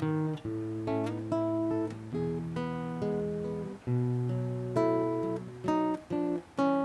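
Solo acoustic guitar playing a sequence of strummed and plucked chords, a new chord struck about every second and left to ring.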